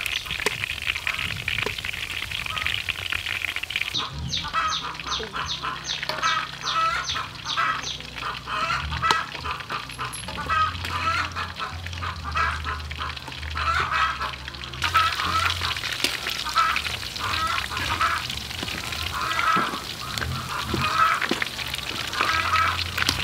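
Hot oil sizzling and bubbling around battered salmon fins deep-frying in a wok, with ducks quacking repeatedly over it.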